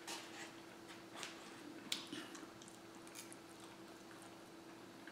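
Faint chewing and mouth sounds of a person eating a burrito, with a few light clicks of a fork on the takeout dish (the sharpest about two seconds in), over a faint steady hum.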